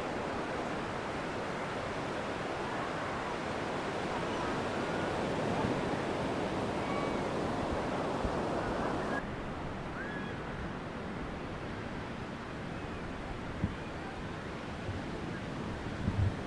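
Sea surf washing onto a sandy beach, a steady rushing noise that turns abruptly quieter about nine seconds in. A few brief soft knocks come near the end.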